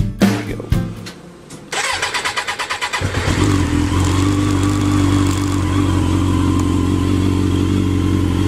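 Suzuki RF900's inline-four engine cranked by its electric starter for about a second, then catching and settling into a steady idle.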